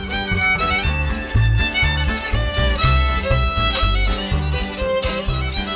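Old-time string band playing a fiddle-led square-dance tune, with a steady bass beat under the fiddle.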